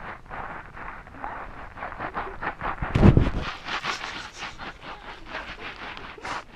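Shoes scuffing and scraping in quick, uneven steps while climbing down a steep slope, with a heavy low thump about three seconds in.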